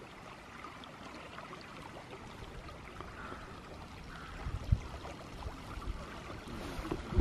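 River water lapping and trickling quietly around a canoe. From about halfway through there are low rumbling bumps on the microphone, with one sharper thump.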